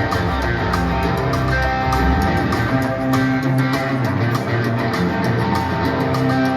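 Live rock band playing an instrumental passage, with strummed guitar over sustained notes and a steady rhythmic pulse. The deep bass drops away about halfway through.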